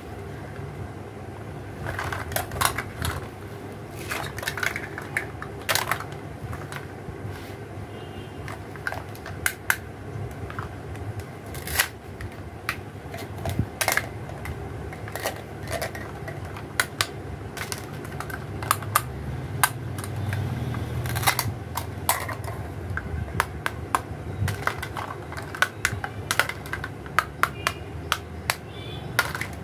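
Plastic toy fruit and vegetable pieces clicking and clacking as they are picked up, set down and knocked together, with the occasional short rip of the Velcro that holds the cut toy halves together. Irregular taps come every second or so over a steady low hum.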